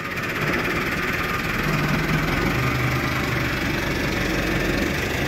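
Tractor engine picking up and running steadily under load as its front bucket is raised to drag tree roots out of a blocked drain by a rope. It grows louder over the first second, then holds a steady hum.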